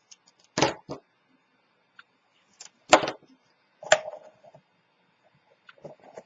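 Small craft scissors clicking as they trim paper strips, then paper being handled and pressed onto a cardboard box: several short, sharp clicks and taps with faint paper rustling between, the loudest about three seconds in.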